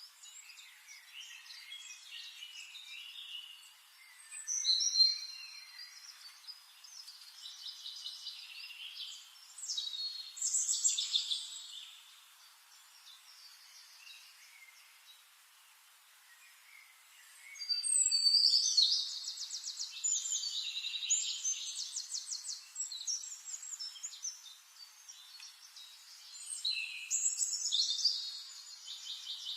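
Forest songbirds singing: several overlapping phrases of quick trills and chirps that come and go, with a quieter lull in the middle.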